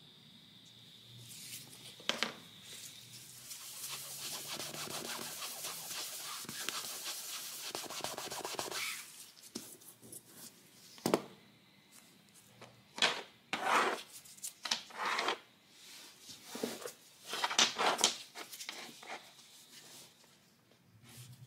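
Rubbing and scraping on a laminate floor surface: a long continuous stretch of rubbing, then a series of short separate strokes, the later ones loudest.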